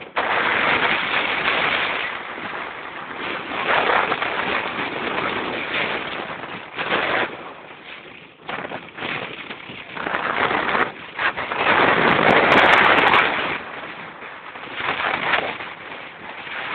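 Wind buffeting the microphone of a moving vehicle, with road noise underneath. It rises and falls in irregular gusts, loudest about twelve seconds in.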